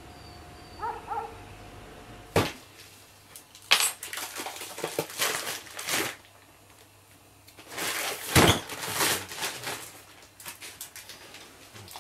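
Irregular knocks, clatter and scraping of hard objects being shifted and handled, the loudest knocks about two and a half, four and eight and a half seconds in. A brief high whine sounds about a second in.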